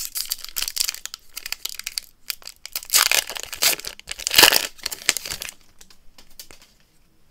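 A Disney Lorcana booster pack's wrapper crinkling and being torn open, with irregular rustling of the wrapper and cards. The rustling dies down about five and a half seconds in.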